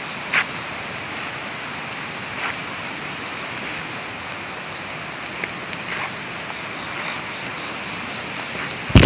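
Steady rushing of river water, with a few faint short clicks. Right at the end comes a sudden loud crackling burst.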